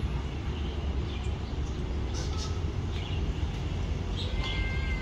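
A steady low rumble, with faint scattered higher sounds and a thin high tone near the end.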